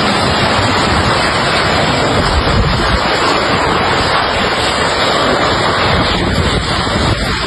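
Strong gusting wind rushing and buffeting the microphone in a loud, unbroken roar of noise.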